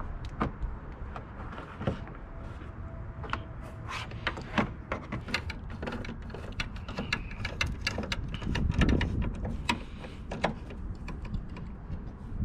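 Irregular clicks and taps of hand work on a car's front-end trim, such as screws and plastic push pins being worked loose, over a steady low rumble.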